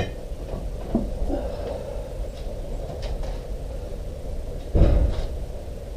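Workbench handling noise as fork parts are put away: a few light clicks and knocks and a heavier thud a little before five seconds, over a steady low rumble.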